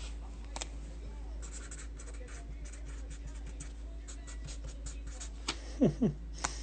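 Quick run of faint scratching and crinkling clicks from trading card packaging and cards being handled during a box break.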